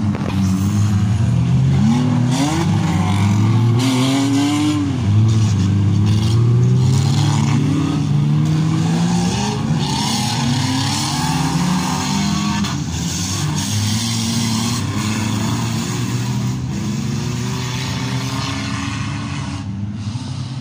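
Several demolition derby cars' engines revving up and down at once, overlapping as the cars drive and manoeuvre in the arena.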